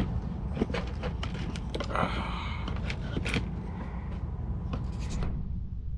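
Light clicks and scrapes of small metal parts being handled: an RC truck's drive shaft and its tiny C-clips being worked at by hand, over a steady low hum.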